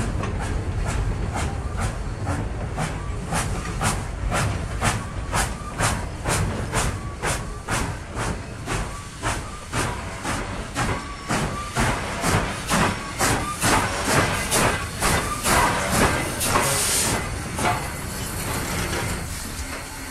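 Steam locomotive chuffing, its exhaust beats coming steadily at about two a second over a hiss of steam, with a louder burst of steam hiss around two-thirds of the way in. The chuffs fade away near the end.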